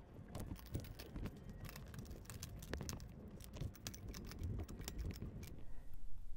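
Adjustable wrench turning a threaded iron pipe elbow on a brass ball valve: a quick, irregular run of small metallic clicks and scrapes from the wrench and fittings, stopping shortly before the end.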